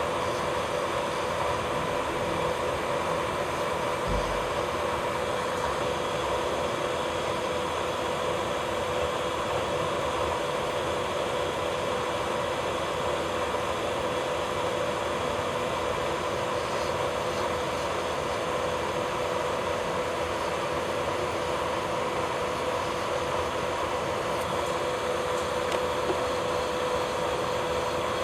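Electric nail drill (e-file) running at a constant speed with a steady whine, used to lift the cuticle during drill cuticle care.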